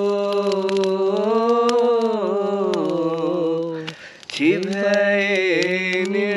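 A man singing unaccompanied in a Pahari (Garhwali) folk song, holding one long drawn-out note for about four seconds. He takes a quick breath, then holds another note that begins to waver.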